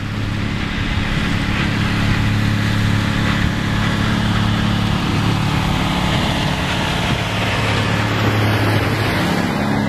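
Car driving on a snowy road, heard from inside the car: a steady low engine drone over tyre and road noise.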